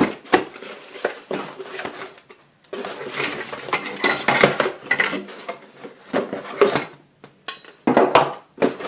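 Hard vacuum cleaner parts, the tubes among them, clattering and knocking together as they are handled out of the box: a run of knocks and clinks with two short pauses.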